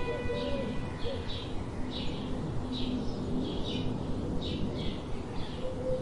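Bird calls: short high chirps repeating about twice a second, with some lower calls in the middle.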